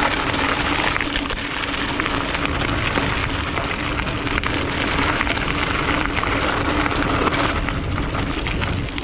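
29-inch mountain bike tyres rolling over a gravel and dirt track: a dense, continuous crackling crunch, with a steady low hum underneath.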